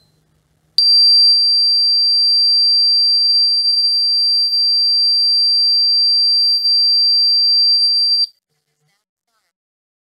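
Qolsys IQ Panel 2+ alarm panel's built-in siren sounding a loud, steady, high-pitched tone: the intrusion alarm set off by a tripped door sensor once the entry delay ran out. It starts abruptly about a second in and cuts off suddenly after about seven and a half seconds when the panel is disarmed.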